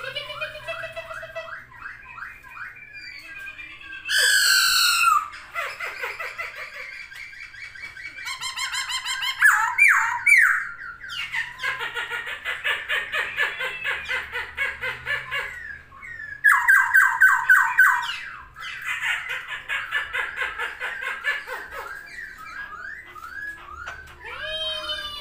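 Poksay hongkong laughingthrush singing a loud, varied song. It mixes sliding whistled notes with fast runs of repeated notes and harsh chattering phrases, phrase after phrase without a break.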